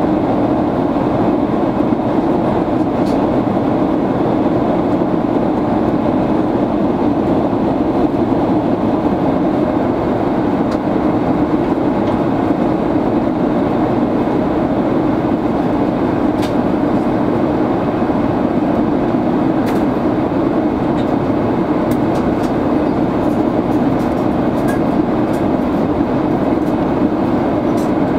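Steady cabin noise inside an Airbus A330-300 airliner: a constant, even rush of airflow and engine noise, with a few faint clicks in the second half.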